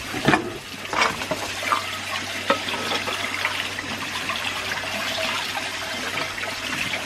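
Water running or being poured in a steady rush, with a few light knocks in the first couple of seconds.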